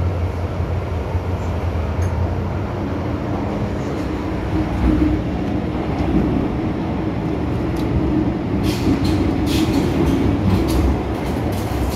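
Cabin noise inside a moving MTR M-Train: the steady rumble of the train running on the track. A band of tone strengthens about three seconds in, and a few sharp clicks come near the end.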